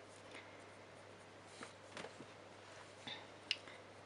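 Coloured pencil lightly touching down and stroking on drawing paper: a few faint, short ticks and scratches, the sharpest about three and a half seconds in.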